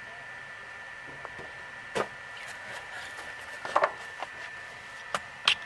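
A steady faint hiss with a few scattered light knocks and clicks, the loudest about two seconds in and a small cluster near four seconds.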